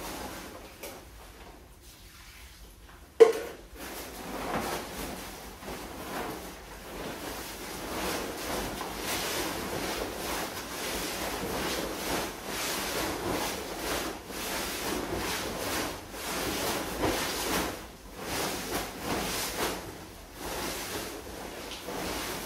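Concrete being mixed by hand on a tarp, the tarp's sides lifted in turns so the wet mix rolls and sloshes and the tarp rustles in repeated swells. A single sharp knock about three seconds in.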